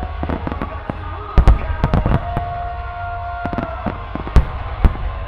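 Aerial firework shells bursting in a volley: a string of sharp booms and cracks, the loudest about one and a half seconds in and again at about four and a half seconds.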